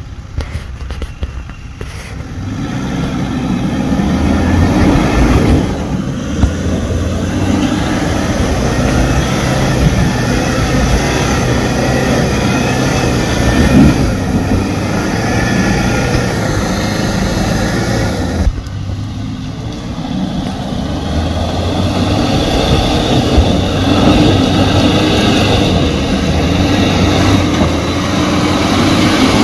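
Four-wheel-drive's engine pulling under load as it crawls up a rough dirt hill track, the revs rising and falling; it eases off briefly about two-thirds of the way through, then picks up again.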